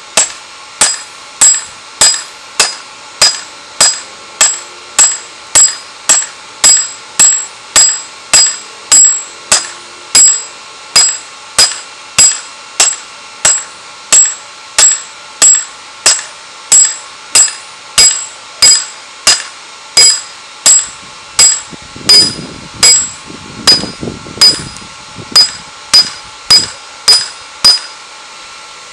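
Ball-peen hammer striking red-hot steel on a round steel anvil block, steady blows about two a second, each with a bright metallic ring, as a spearhead is forged. The blows stop near the end.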